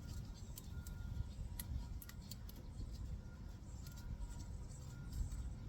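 Faint metallic clicks from wrench work on the brake caliper's upper bolt, a few scattered irregularly about a second apart, over a steady low rumble.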